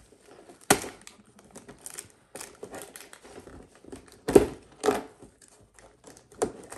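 Cardboard door of a Lego advent calendar being pressed and torn open by hand: a few sharp cracks and pops of cardboard, the loudest about four seconds in, with small crackles between them.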